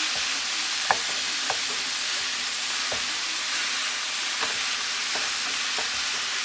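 Ground beef sizzling as it browns in a frying pan, with the scraping of a plastic meat masher breaking it up and a few sharp knocks of the masher against the pan.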